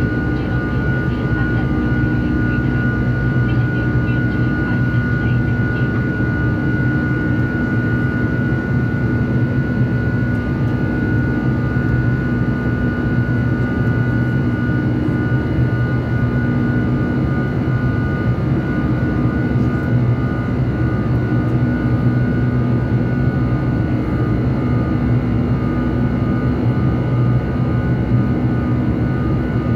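Boeing 747 jet engines heard inside the cabin while climbing out after takeoff: a loud, steady drone with a steady high whine over it.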